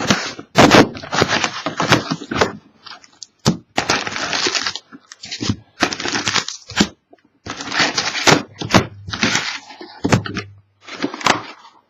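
Trading-card pack wrappers and packaging being torn open and crinkled by hand: a run of irregular crackling rips, some short and some lasting about a second.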